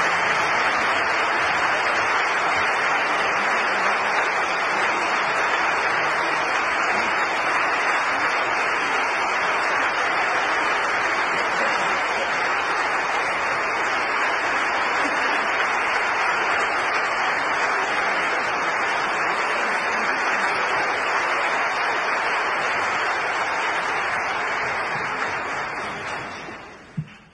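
Audience applause: steady, dense clapping from a concert-hall crowd, fading out near the end.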